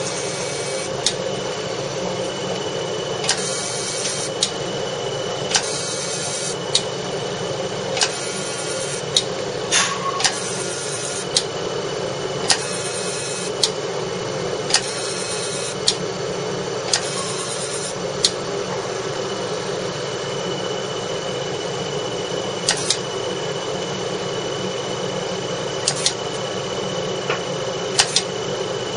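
CO2 fractional laser firing in a steady series of pulses, a sharp click about once a second, over the constant hum of the machine's cooling fan. For about the first two thirds most clicks come with a short high hiss, after which the clicks go on alone.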